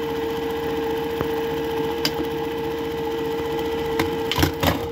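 Juki 761 industrial buttonholing machine sewing a test buttonhole: rapid, even stitching over the steady hum of its motor, with two sharp knocks near the end.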